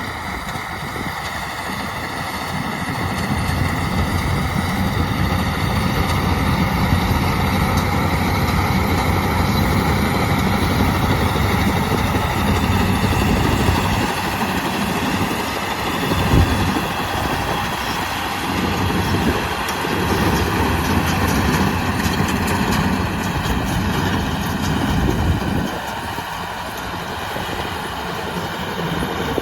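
Yanmar 820 rice combine harvester running under load, a steady engine hum with the higher whine of its cutting and threshing gear. The low engine note dips a few times in the second half, with one sharp knock about halfway through, and the machine runs a little quieter over the last few seconds.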